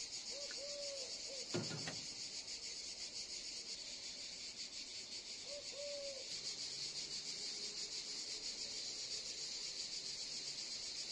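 A steady, high, fast-pulsing insect chorus in a sunny garden, with two short low bird calls, one near the start and one about six seconds in, and a single sharp knock about a second and a half in.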